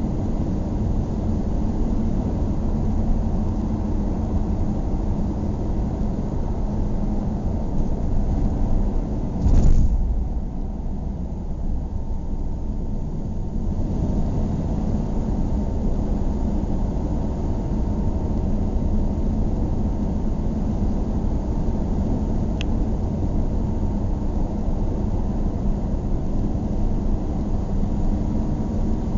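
Car driving at highway speed: a steady rumble of road and engine noise, with a brief louder surge about nine and a half seconds in.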